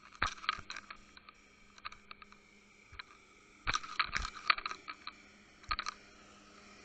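Irregular clusters of sharp clicks and knocks heard underwater, as the jigged bucktail rig and its sinker tap and rattle on the shelly bottom.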